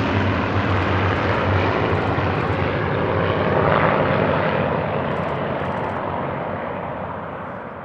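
Propeller aircraft engine running at high power, a steady drone that fades away over the last few seconds.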